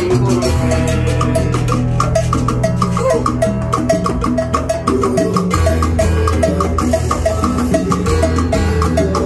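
Live salsa band playing an instrumental passage, with timbales and cymbal, congas and bass under a steady, evenly repeating pattern of short clicking percussion hits.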